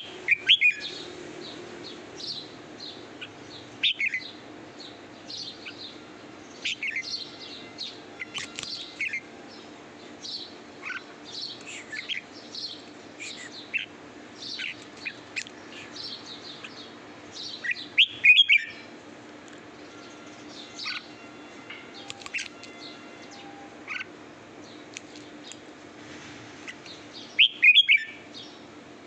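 Red-whiskered bulbul singing: a string of short, sharp chirping notes throughout, with louder phrases at the very start, about four seconds in, halfway through and near the end.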